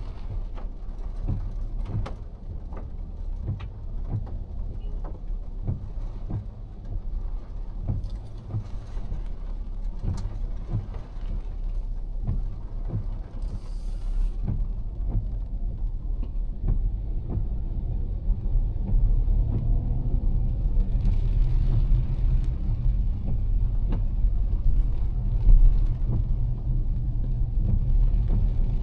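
A car driving in heavy rain. Many sharp drops tick on the car over a steady low rumble of tyres on the wet road, and the rumble grows louder through the second half.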